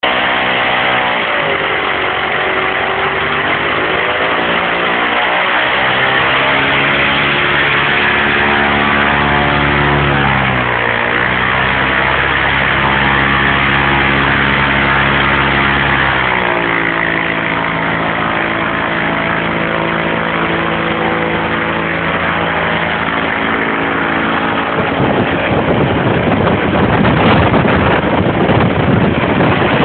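Lycoming aircraft engine driving a wind machine's propeller, running and changing speed several times. About five seconds before the end a louder rushing noise of blown air covers the engine tone.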